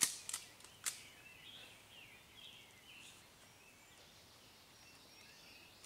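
A few sharp clicks in the first second, then a songbird singing a series of short, warbling chirps in the woods.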